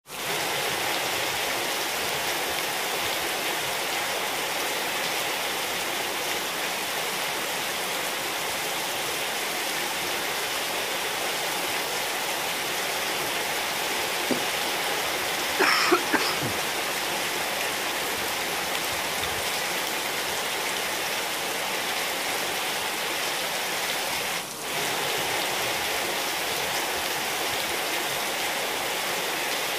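Steady rain falling on wet courtyard tiles and potted plants: an even hiss of drops hitting the surfaces. About halfway through, a short cluster of knocks and a brief higher sound stand out above it.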